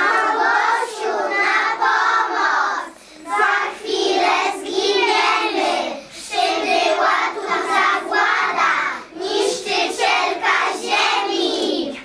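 A group of young children singing a song together, in phrases of about three seconds with short breaths between them.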